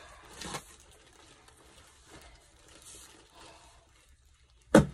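Cardboard box rustling and creaking under a person kneeling on it to squash it shut, with one loud thump just before the end.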